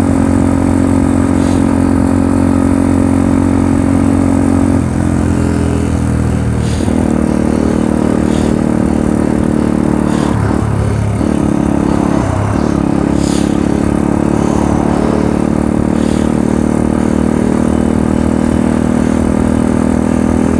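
Small moped-class scooter engine running at steady high revs on the move. Its pitch shifts about five seconds in and dips twice briefly near the middle as the throttle is eased and reopened.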